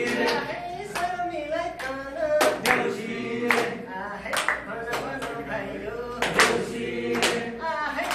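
Group singing of a song, accompanied by hand claps at about one clap a second.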